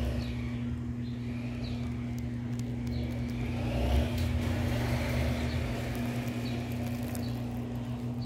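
A steady low machine hum with a low rumble beneath it, and a few faint short high chirps over it.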